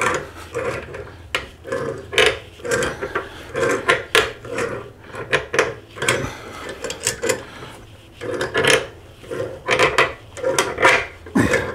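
Threaded brass pipe fittings being turned tight with a hand tool: a run of short rasping, scraping strokes, roughly two a second, with a brief pause partway through.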